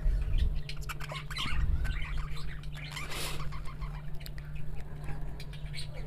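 Moghlai egg paratha frying in a little oil in a non-stick pan: scattered crackling and spitting of the oil, with a brief louder hiss about three seconds in, over a steady low hum.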